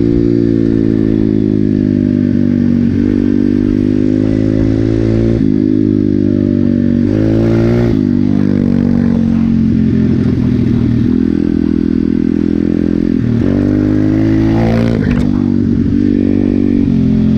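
Regulmoto Seven Medalist 150E pit bike's 150 cc single-cylinder engine running under way on a dirt road, its note rising and dropping several times with throttle and gear changes.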